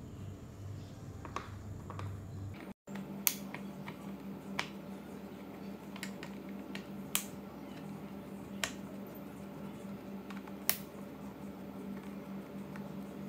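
Sharp, separate clicks of a Phillips screwdriver working the small screws and metal bracket of a power window switch, about five loud ones spread over ten seconds, over a steady low hum. The sound cuts out for a moment about three seconds in.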